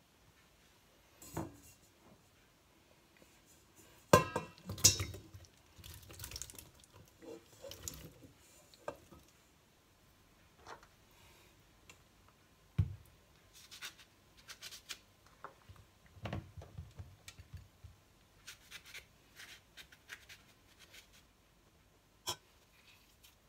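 Kitchenware being handled: a stainless steel pot, glass bowls and a knife knocking and clinking at irregular intervals, with the loudest clatter about four seconds in. Near the end come lighter taps and scrapes as a lemon is cut with a knife.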